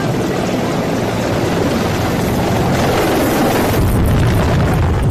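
Low-flying military attack helicopters passing close: loud rotor and turbine noise. From about four seconds in, a heavy low rumble of rotor downwash buffets the microphone.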